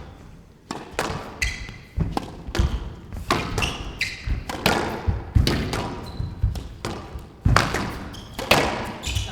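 Squash rally: the ball struck hard by rackets and smacking off the court walls, roughly two sharp hits a second.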